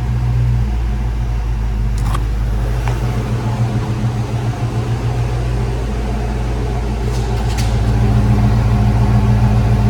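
1995 Mustang GT's 5.0-litre V8 idling steadily after a cold-to-warm start, now running smoothly on a new fuel pump and pressure regulator.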